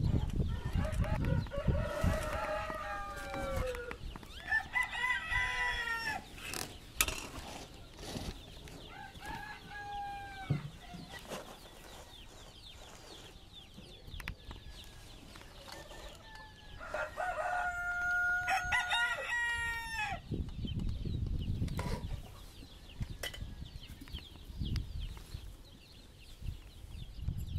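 A rooster crowing repeatedly, with some clucking. The calls are drawn-out and fall in pitch at the end, coming near the start, around five seconds in, around ten seconds in, and in a closer run later on. A low rumble comes and goes underneath.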